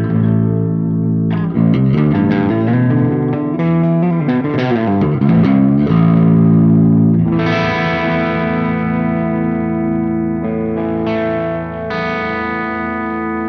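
Seven-string Ibanez Universe electric guitar on its bridge pickup, played through a Soldano SLO-100 clone's crunch channel at moderate gain. It plays distorted chords and a fast picked run of changing notes, then strikes chords and lets them ring out.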